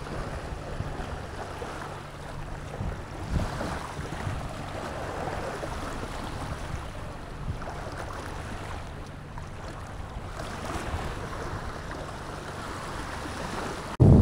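Motorboat engine running steadily, with water rushing along the hull and wind on the microphone. Near the end it cuts to much louder wind buffeting the microphone.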